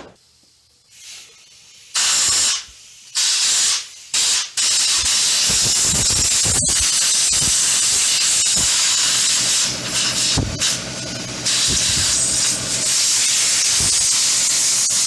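Compressed-air blow gun hissing, first in three short blasts and then in a long, almost unbroken blast with a few brief dips. The air is being forced under a scooter handlebar grip to loosen it off the bar.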